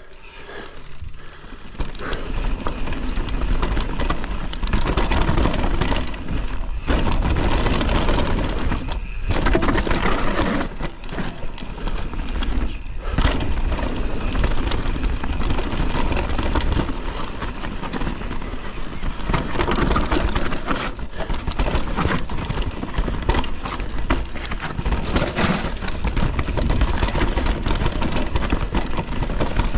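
Downhill mountain bike (Canyon Torque Mullet CF8) descending a dirt trail. Wind rushes over the microphone, and the tyres roll over dirt and rocks while the bike rattles with frequent sharp knocks from bumps. It gets louder about two seconds in, as speed picks up.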